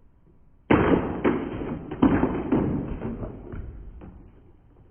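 A series of thumps with a rustling noise, starting suddenly under a second in, striking about twice a second and fading away.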